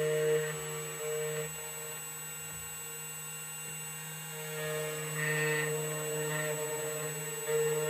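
2M2 Tank CNC key cutting machine cutting a key blank: a steady motor whine, with tones that switch on and off and shift as the cutter moves along the key.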